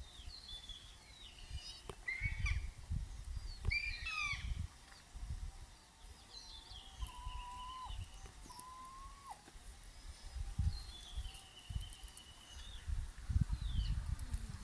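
Several wild birds calling together: many short high chirps and trills, and a few clear lower whistles that hold steady and then drop, with low rumbling bursts on the microphone.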